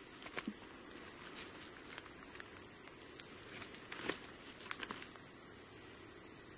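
Footsteps crunching through dry leaf litter and twigs, with irregular snaps and crackles. The loudest is a cluster a little under five seconds in.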